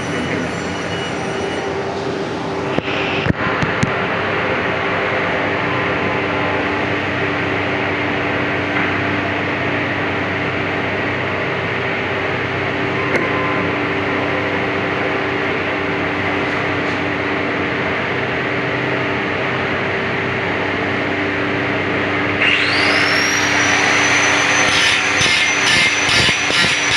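A workshop machine runs with a steady hum. About 22 seconds in, a high-speed power tool motor spins up with a rising whine, then runs with an even pulsing sound.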